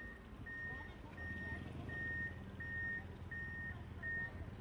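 A vehicle's reversing alarm beeping at an even pace, about seven single high beeps, roughly one and a half a second, over a low rumble; the beeping stops shortly before the end.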